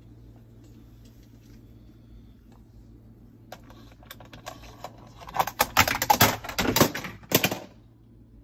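Moluccan cockatoo's beak knocking and rummaging among hard plastic toys: scattered clicks from about three and a half seconds in, building to a fast, loud clatter of taps for about two seconds, then stopping.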